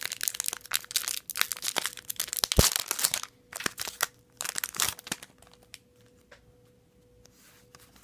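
Foil booster-pack wrapper of Yu-Gi-Oh cards crinkling and tearing open, dense crackling for about three seconds with one sharp snap near the middle. A few more short rustles follow, then it fades to faint handling.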